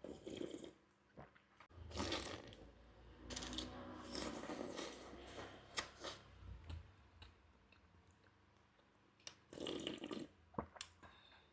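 Close-miked eating of cuanki: irregular chewing and crunching in bursts, with a few sharp clicks of a spoon against the bowl.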